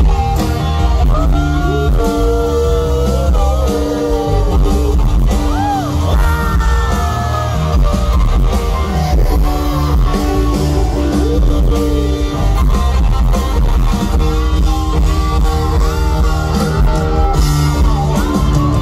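Live rock band playing: electric guitar, drums and bass with singing over them, heard from within a festival crowd.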